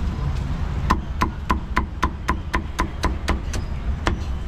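Meat cleaver chopping crispy roast pork belly on a thick wooden chopping block: about a dozen quick, even strikes at roughly four a second, starting about a second in, with one last chop near the end.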